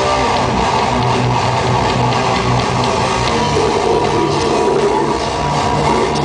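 A rock band playing loud heavy music live, electric guitar over held low bass notes.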